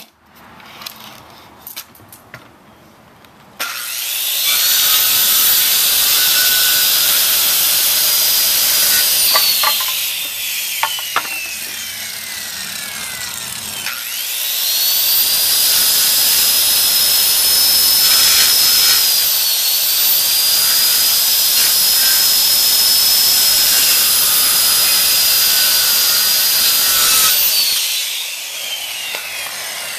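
Handheld corded circular saw cutting a wooden board. The motor starts about three and a half seconds in and runs through the cut with a high whine, then winds down with a falling whine. It starts again for a second, longer cut and winds down near the end.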